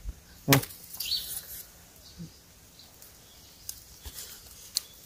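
Sparse sounds of young bamboo shoots being handled among dry, burnt bamboo stems, with a few small sharp snaps near the end. A brief high bird chirp comes about a second in.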